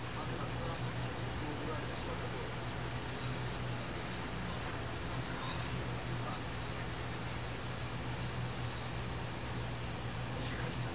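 Crickets chirping in a continuous high trill, with a steady low hum underneath.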